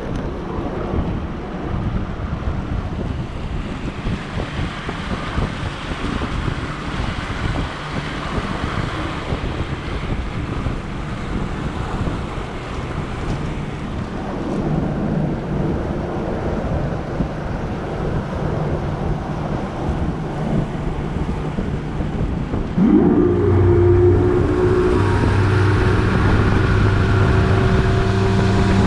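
Bass boat's outboard motor under way, largely covered by wind on the microphone and rushing water. Near the end the engine throttles up: its pitch sweeps up quickly and holds, running steadily and clearly louder.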